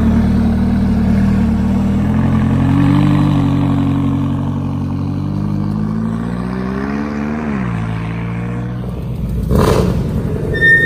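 McLaren's twin-turbo V8 pulling away, revs climbing steadily, then dropping sharply about seven and a half seconds in before the sound fades as the car drives off. A short burst of noise follows near the end.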